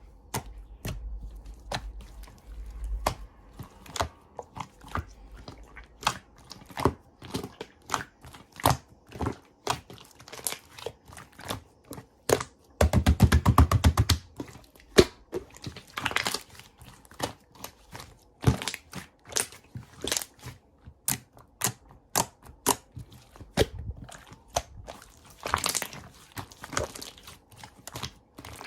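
Slime being squished, stretched and poked, giving irregular sharp clicks and pops, with a quick run of rapid crackling clicks about halfway through.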